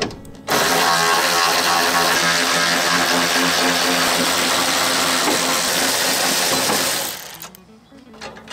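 Cordless electric ratchet running steadily, spinning out the bolts of a windshield wiper motor cover. It starts abruptly about half a second in and winds down about seven seconds in.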